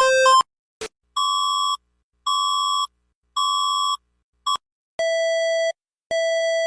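Electronic emergency alert tones played one after another. First comes the end of a fast alternating two-pitch beep and a click. Then the Philippine alert tone gives three evenly spaced steady beeps of about half a second; it is cut off, and the Indonesian alert tone begins, a lower steady beep repeating about once a second.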